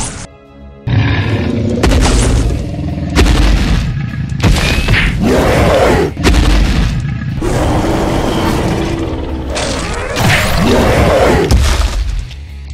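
A rapid string of dubbed fight sound effects: repeated booms and thuds of blows and impacts. There is a brief lull just after the start.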